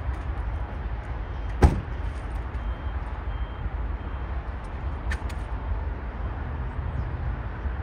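Steady rumble and hiss of jet aircraft engines at an airport, with a sharp click about two seconds in and a fainter one about five seconds in.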